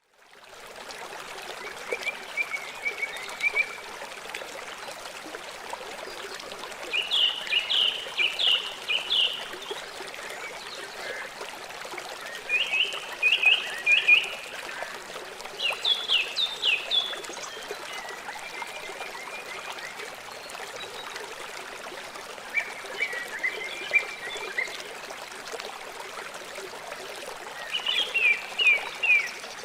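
Steady running water of a river or stream, with a group of quick, high, downward-sliding chirps repeated every few seconds, about six times, louder than the water.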